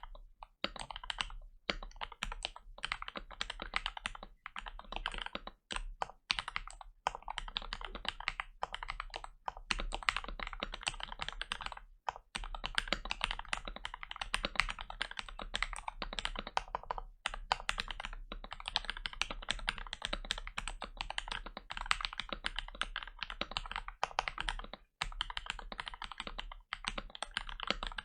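Fast continuous typing on a Gamakay LK67 mechanical keyboard with lubed Gateron Milky Yellow linear switches, a rapid stream of deep, muted keystrokes with a few brief pauses.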